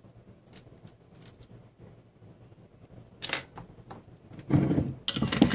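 A few faint clicks, a sharper click about three seconds in, then from about four and a half seconds in loud knocks and scrapes as bottles are handled and moved on a wooden desk close to the microphone.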